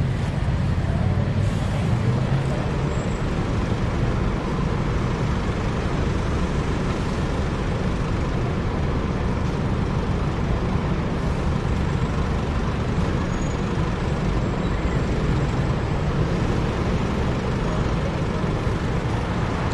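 Steady city traffic rumble: running vehicle engines and road noise, heaviest in the deep bass and unbroken throughout.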